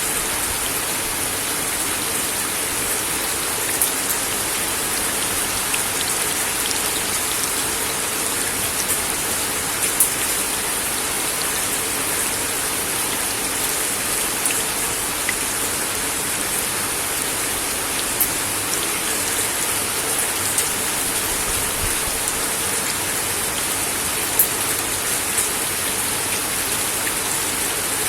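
Steady rain falling on a wooden deck: a dense, even hiss of drops with a few louder single drops striking close by.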